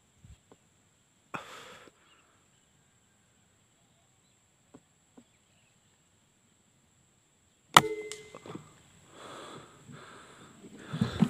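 A single Canon 737 air rifle shot about eight seconds in, a sharp crack followed by a brief ringing tone. Breathy puffs of the shooter's breath come before the shot and just after it.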